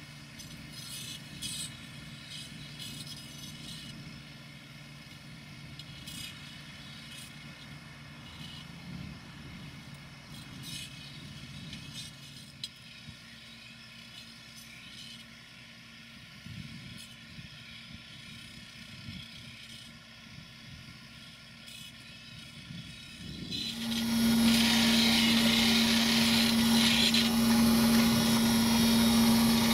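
Tractor and silage wagon running at a distance as the wagon unloads grass, with faint clicks. About 24 seconds in it gives way abruptly to the much louder Pöttinger Jumbo loader wagon's automatic knife sharpener: a grinding wheel spinning against the cutter knives, a steady hum under a hiss of grinding.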